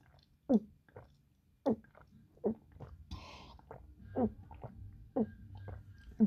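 A person gulping a drink, about seven separate swallows roughly a second apart, each a short gulp that slides down in pitch.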